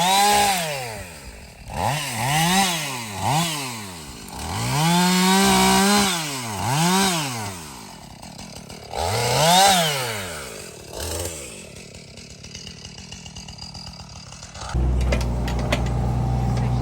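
Chainsaw revved up and down several times, its pitch climbing and falling with each blip of the throttle. About fifteen seconds in, a steadier, lower engine sound starts and runs on.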